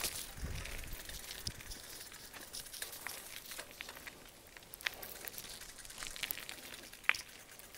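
Footsteps crunching over gravel, twigs and undergrowth: scattered soft crackles and sharp clicks, the sharpest near the end, with a brief low rumble about half a second in.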